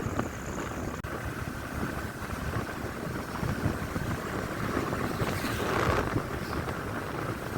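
Steady rush of heavy rain, with wind buffeting the microphone in low rumbles.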